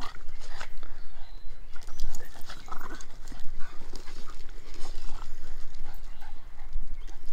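Boston Terriers playing together, making short, irregular dog sounds.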